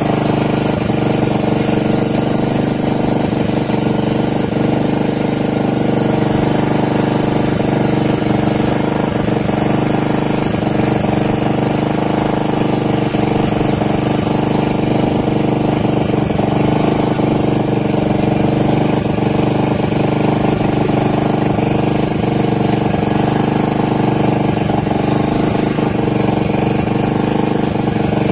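Engine running steadily at one constant speed, a loud even drone with no rise or fall.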